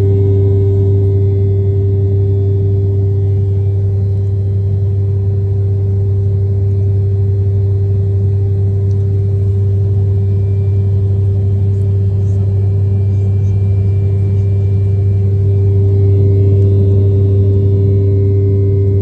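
Airliner cabin noise from the jet engines: a steady loud drone with a deep hum and a constant mid-pitched tone above it, typical of an aircraft climbing after takeoff.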